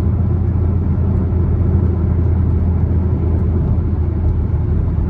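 Camaro SS V8 engine and exhaust droning steadily at a constant low pitch while cruising, with tyre and road noise under it.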